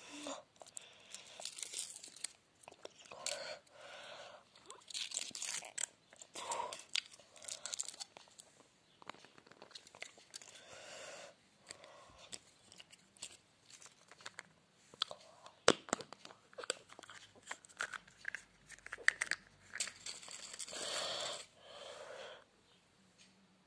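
Kinder Surprise egg being unwrapped and opened by hand: the foil wrapper crinkles and tears, and the chocolate shell crunches, in irregular bursts with sharp clicks. The loudest snap comes about two-thirds of the way in.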